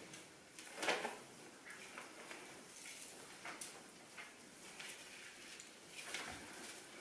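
Soft swishes and rustles of a person swinging a fiber-optic light whip and moving about, with the loudest swish about a second in and another near the end.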